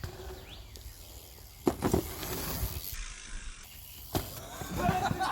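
A bicycle riding over a dirt jump, with loud thumps a little under two seconds in and again about four seconds in.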